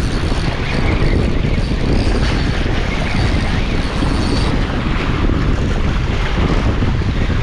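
Strong wind buffeting the microphone: a loud, steady low rumble and rush.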